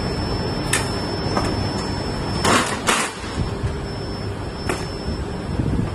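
Factory floor noise: a steady low rumble with a few metal clanks and a short scraping rattle about two and a half seconds in, as a loaded rotomolding mold is handled on a steel cart.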